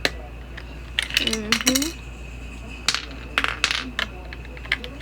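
AAA batteries clinking and clicking against one another and against hard plastic as they are handled, in a quick cluster about a second in and a few more scattered clicks later.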